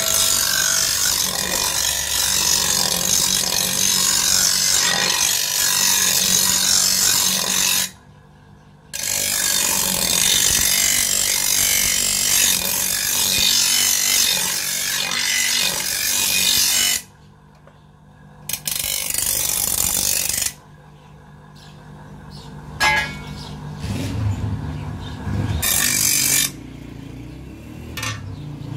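Steel hand-plough blade being ground on a motor-driven grinding wheel, sharpening its edge: a loud, steady hissing grind over the motor's hum, broken twice by short silences. Later the grinding stops and the motor hum runs on lower, with a couple of knocks.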